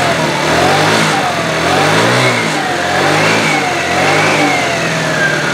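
TaoTao scooter's small single-cylinder engine being revved up and down with quick throttle blips, about one a second, then dropping back toward idle near the end. It is being run to bring on a fault in which it idles down and then dies.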